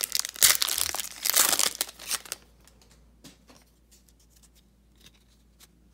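Wrapper of a pack of football trading cards being torn open and crinkled for about two seconds, followed by a few faint clicks as the stack of cards is slid out and handled.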